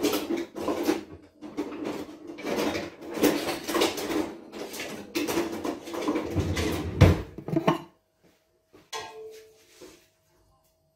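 Metal cookware and utensils clattering and scraping in a pot on the stove, a dense run of clinks and knocks that stops about eight seconds in, followed by one short clatter a second later.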